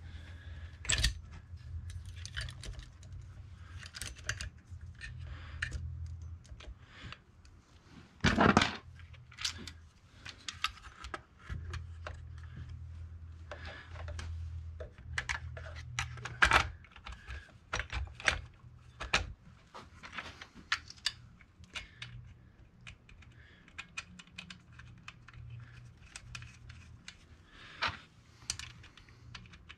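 Scattered light clicks, taps and rattles of a chainsaw's guide bar and chain being handled and fitted onto the saw, with one louder knock about eight seconds in.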